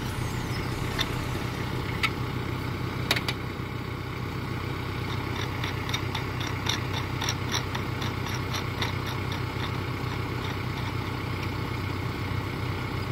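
Tractor backhoe engine idling steadily. Over it come a few sharp clicks and, for a few seconds in the middle, light rapid ticking as a clamp knob on the backhoe arm is tightened by hand.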